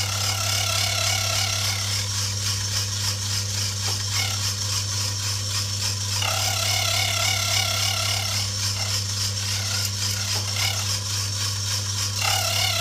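Electric motor driving the belt-driven cutter of a homemade harmonica reed milling machine, running with a steady hum. A higher, wavering whine comes and goes several times as the cutter cuts into the clamped brass reed blank.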